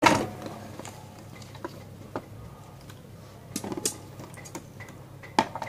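Satin fabric and gold lace being handled at a sewing machine: soft rustling with scattered, irregular light clicks and taps. It starts abruptly.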